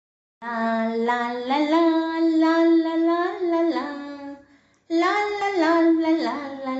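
A solo voice singing a slow melody in long held notes, with no instruments behind it. It breaks off briefly about four and a half seconds in, then goes on.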